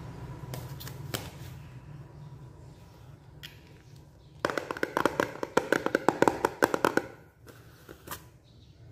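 A clear plastic jar of dried snacks with a metal screw lid being handled, its contents rattling in a quick run of clicks for about two and a half seconds from about four and a half seconds in.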